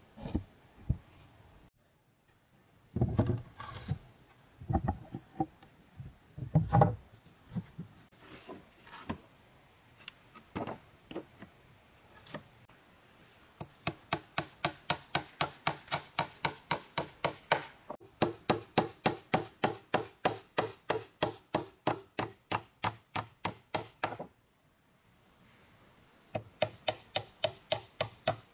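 Repeated strikes on wood: a few scattered knocks at first, then two long runs of fast, even blows, about four a second, with a short break between them.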